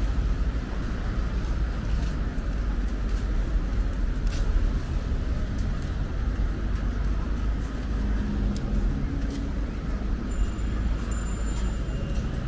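Steady outdoor rumble, heaviest in the deep lows, with a few faint clicks over it.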